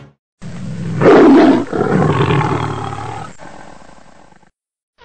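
A big cat's roar: it starts about half a second in, is loudest for a moment about a second in, then trails off over the next three seconds.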